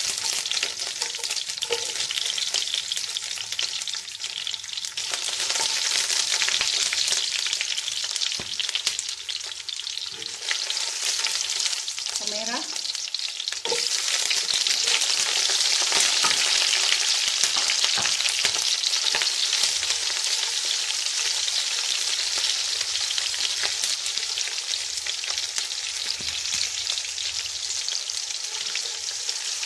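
Garlic cloves, curry leaves and spice seeds sizzling in hot oil in a non-stick wok. About fourteen seconds in, sliced red onions are tipped in and the sizzle gets louder.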